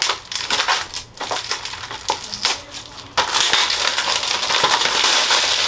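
Plastic shrink-wrap crinkling as it is peeled off a 4K Blu-ray case: a few separate crackles and clicks, then from about three seconds in a continuous dense crackle.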